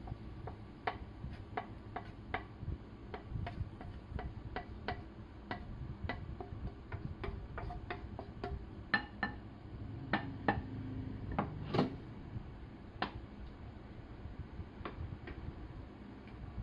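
Wooden spatula scraping and tapping fried rice out of a frying pan onto a plate: a string of light, irregular clicks and knocks, with a few louder knocks about halfway through.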